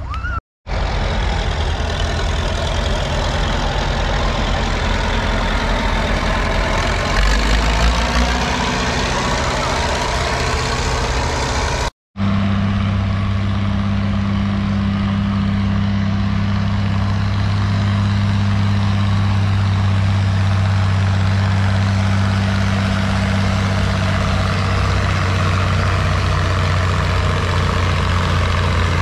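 Farm tractor engine running hard under load, pulling a weight-transfer sled in a farm-stock tractor pull. Its pitch holds steady as a low, even drone. The sound cuts out briefly twice, near the start and about 12 seconds in.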